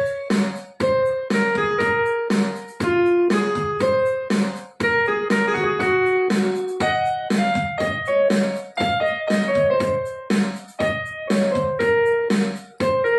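Casio CT-X870IN portable keyboard played by hand: a melody of separate notes stepping up and down, each struck and fading before the next, with a few brief gaps.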